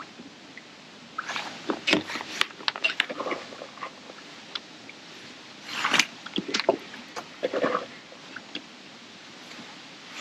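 Rustling and scattered small clicks and scrapes of fishing tackle and waterproof clothing being handled, in two bursts: one starting about a second in, the other about six seconds in.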